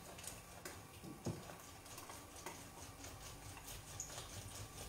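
Lemon half being twisted and pressed on a plastic hand juicer: faint squeezing with light clicks and taps, and one sharper knock about a second in.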